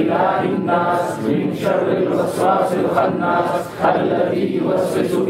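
Voices chanting together in a devotional recitation, sustained and melodic, with a brief break about four seconds in.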